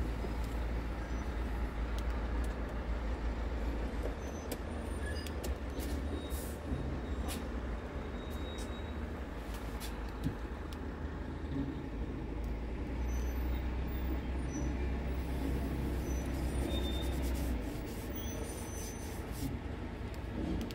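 Truck diesel engine idling, heard from inside the cab as a steady low rumble, with light clicks and taps of handling over it.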